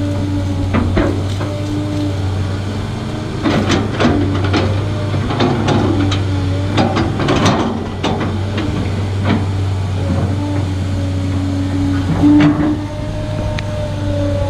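Large excavator digging: its diesel engine runs steadily under a held hydraulic whine, with a run of knocks and clanks from the bucket working the ground from about three and a half to eight seconds in.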